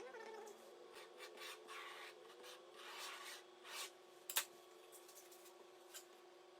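Faint irregular scraping and rubbing strokes, with one sharp click about four seconds in, over a steady low hum.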